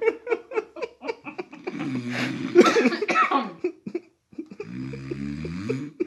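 A man snoring loudly in his sleep: rough, rattling snores, a brief pause about four seconds in, then a deeper droning snore.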